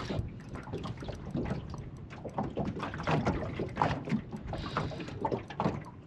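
Small waves lapping and slapping irregularly against the hull of a small boat.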